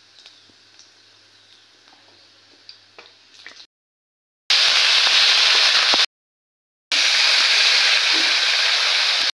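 Food sizzling in hot oil in a kadai: first a faint sizzle with a few light ticks, then two loud stretches of sizzling, broken by short silences, as potato pieces fry in the oil.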